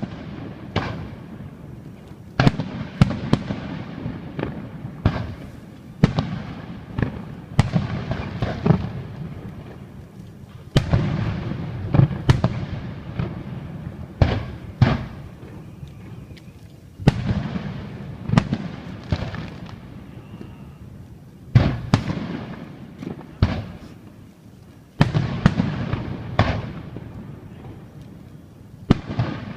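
Fireworks going off in volleys of sharp bangs and crackles every few seconds, each followed by a dying rumble.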